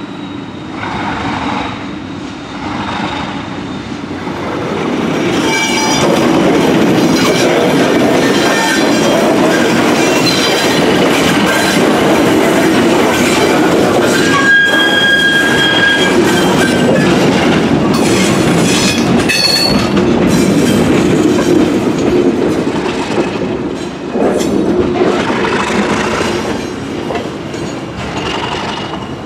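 Alco RS32 diesel locomotive, with its V12 Alco 251 engine, running past close by at the head of a string of freight cars, growing louder about five seconds in. Short high wheel squeals come in a few times, and the cars clack over the rails.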